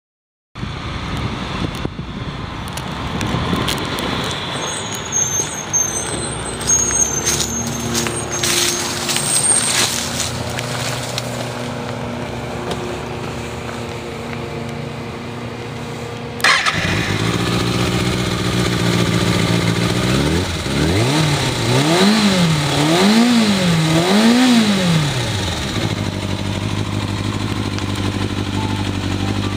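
Kawasaki Ninja ZX-6R inline-four engine with an aftermarket slip-on exhaust, idling. Clicks and knocks come through early on. About halfway the sound steps up abruptly, and past two-thirds of the way the engine is blipped three times, each rev rising and falling quickly before it settles back to idle.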